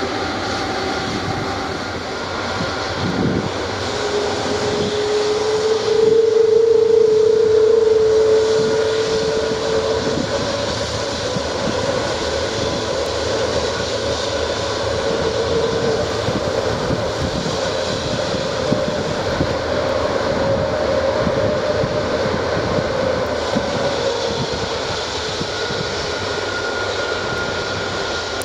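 Airbus A330-300's jet engines running at taxi idle as the airliner taxis past: a steady whine over a rushing roar, loudest about six to ten seconds in.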